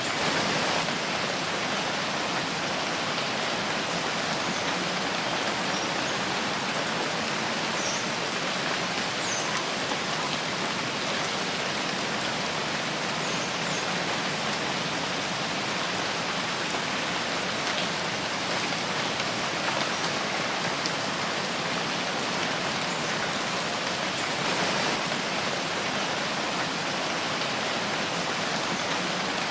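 Steady rain falling in a forest, an even hiss of drops without a break.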